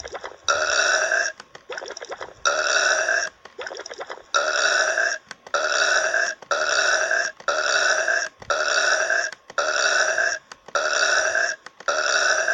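Loud burps, one after another, about ten in all, each under a second long and sounding alike. They come about two seconds apart at first, then roughly one a second.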